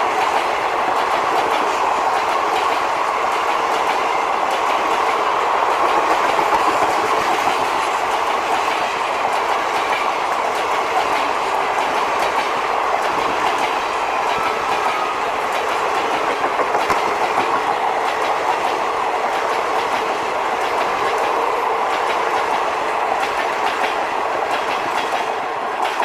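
Karnataka Express passenger coaches rushing past at speed: a steady loud rush of wheels on rail with a clickety-clack of wheels over rail joints, falling away sharply at the very end as the last coach passes.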